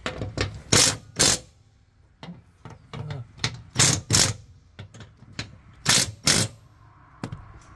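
Cordless impact driver run in three pairs of short bursts on a mower deck's blade-spindle nut, with light clicks of the socket in between. The spindle thread has stripped, so the nut is not going on.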